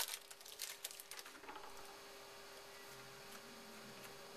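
Light rustling and clicking of trading cards being handled, dying away after about a second and a half into quiet room tone with a faint steady hum.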